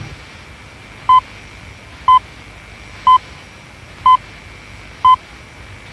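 BBC Greenwich Time Signal: five short, identical 1 kHz pips exactly one second apart over a steady hiss, counting down the final seconds to the top of the hour.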